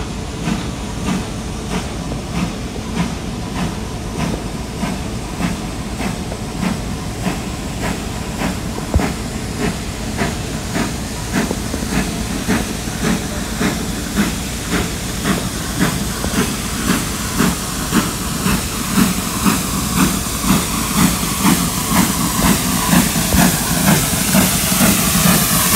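GWR Saint class 4-6-0 steam locomotive No. 2999 drawing slowly along a platform under steam. Its chuffing exhaust beats come about twice a second over a steady hiss of escaping steam, and grow louder as it approaches.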